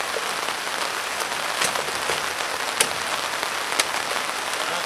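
Steady heavy rain pattering on a tarp overhead, with three sharp ticks about a second apart.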